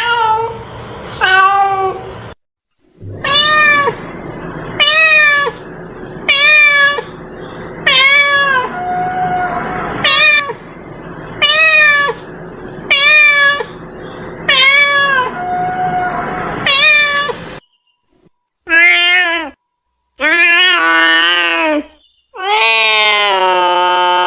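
A cat meowing over and over: short meows about every second and a half, then, after a brief break, three longer drawn-out meows, the last one held for several seconds.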